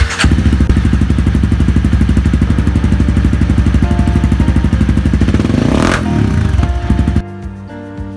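Honda CRF250L's single-cylinder four-stroke engine running loud and even through an FMF Powercore 4 slip-on exhaust, with one quick rev near six seconds in that falls back. It cuts off suddenly about seven seconds in.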